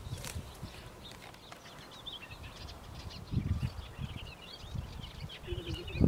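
Small birds chirping and twittering. A short low noise comes about halfway through.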